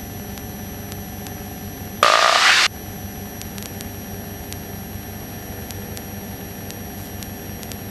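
Steady drone of a light aircraft's piston engine heard through the headset intercom, broken about two seconds in by a loud, brief burst of radio hiss lasting under a second.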